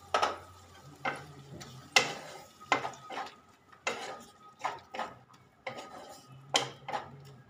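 Spatula stirring and scraping fried ridge gourd through a thick poppy-seed and mustard paste in a frying pan, a short scrape against the pan about once a second.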